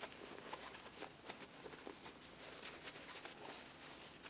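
Faint, scattered rustling of a quilted fabric panel being handled, with a few soft ticks as hands work inside it.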